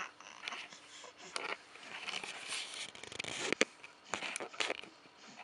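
Faint rustling with a few sharp clicks scattered through it, about a second and a half in and several more in the last half.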